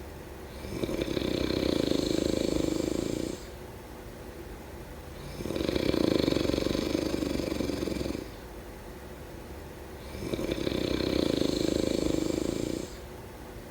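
Someone asleep and snoring: three long snores in a slow, even rhythm, about five seconds apart and each lasting two to three seconds, with quieter gaps between.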